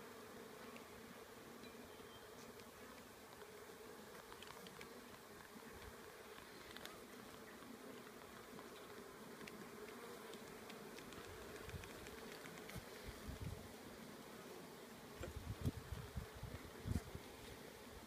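Honeybee colony in an opened hive giving a steady hum. A few low thumps come in during the last few seconds.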